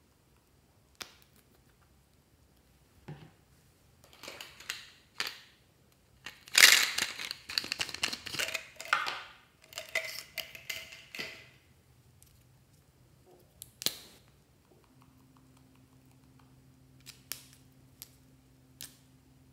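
Felt-tip markers clattering and rattling against each other in a jar as one is picked out, the loudest stretch, with several sharp clicks of caps and handling before and after.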